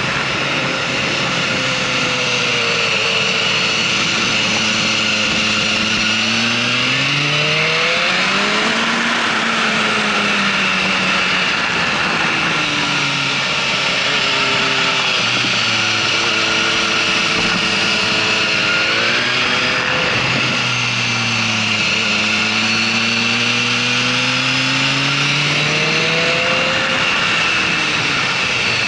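Motorcycle engine at speed, heard from the following bike: the revs climb and fall back again and again with throttle and gear changes through the corners. Steady wind rush runs underneath.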